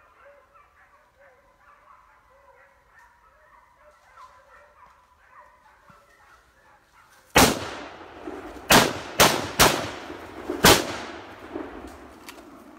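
Hunting dogs bay faintly. Then a Winchester carbine fires a quick string of shots at a running wild boar over about three seconds: first one shot, then several close together, each cracking loud and ringing out through the woods.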